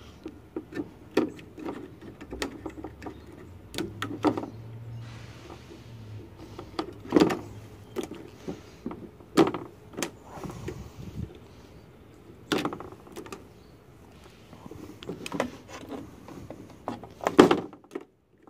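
Wire cutters snipping wires off a CRT television's circuit board: sharp snips and clicks at irregular intervals, with the rustle of the cut wires being handled between them. The loudest snips come about a third of the way in, around the middle, and near the end.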